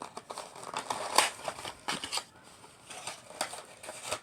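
Irregular clicks, crinkles and snaps of a toy's packaging being handled and opened.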